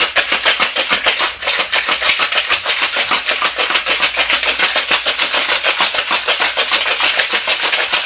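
Ice cubes rattling hard inside a copper-coloured metal cocktail shaker being shaken vigorously, a loud, fast, even clatter of several strokes a second as the drink is chilled.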